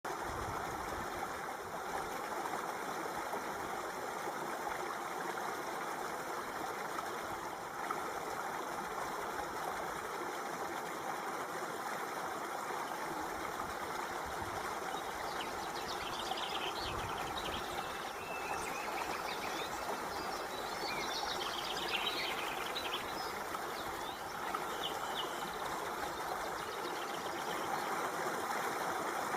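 Water flowing steadily, like a small stream or trickle, with an even rushing sound. Faint high chirps come in briefly about halfway through.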